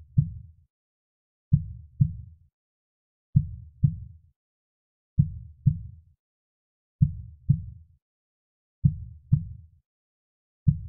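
A soft heartbeat: paired low 'lub-dub' thuds in a slow, even rhythm, about one pair every two seconds, with silence between the beats.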